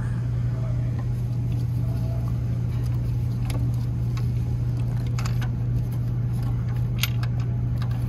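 Steady low hum with a few sharp metallic clicks and taps from hand tools working the valve cover bolts on the engine.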